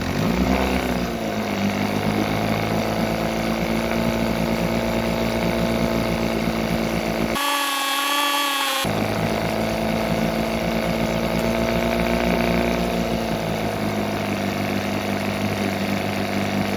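1971 Evinrude 6 hp two-stroke outboard motor running steadily after a carburetor rebuild, its speed rising in the first second and then settling. It is briefly cut off in the middle by a higher, wavering sound lasting about a second and a half.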